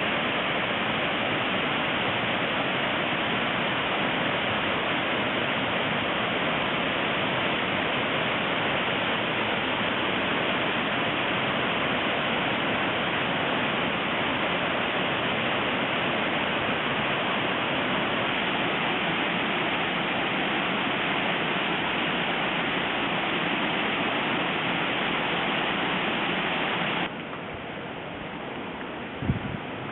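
Waterfall, a steady loud rush of falling water. Near the end the sound drops abruptly to a quieter wash, with a couple of short thumps.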